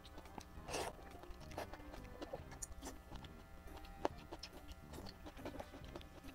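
Close-miked chewing of noodles, with short mouth clicks and smacks scattered through, over steady background music.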